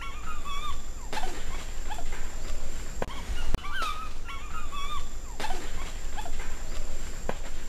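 Harpy eagle calling: short, wavering, whining cries that come in several bouts, separated by pauses.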